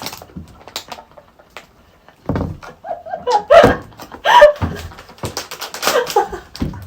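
Blind-box packaging being handled and opened, with short clicks and rustles, then loud wordless voice reactions, such as exclamations and laughter, from about two seconds in.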